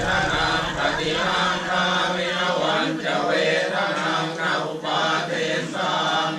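Group of Theravada Buddhist monks chanting together in unison, a steady, unbroken chant of several male voices, as given at a house blessing.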